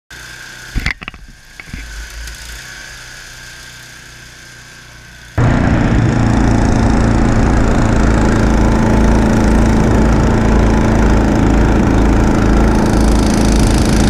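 A few sharp knocks over a low background. About five seconds in, a gasoline snowblower engine comes in loud and steady, close to the handlebars, as the machine throws snow.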